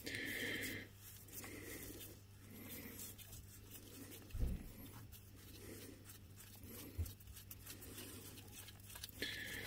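Rubber-gloved hand twisting a loosened spin-on oil filter off an ATV engine: soft rubbing and scraping strokes about once a second, with a dull thump about halfway through, over a faint steady low hum.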